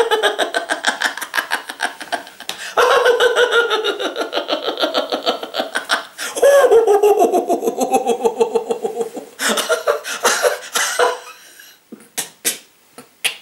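A man laughing hard in quick, rapid pulses, in three long bouts, then shorter bursts that fade out toward the end.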